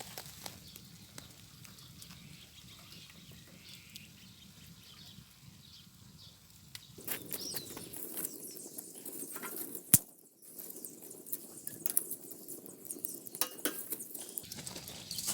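Light crackling and popping from wood-fire cooking, getting busier about seven seconds in, with one sharp click about ten seconds in.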